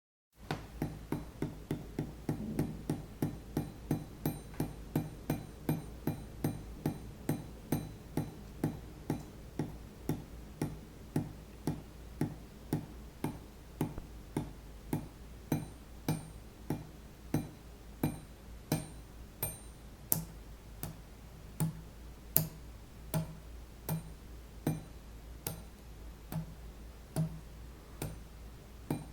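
Water dripping into a metal sink: a regular run of short ringing plinks, about three drops a second at first, slowing to a little over one a second.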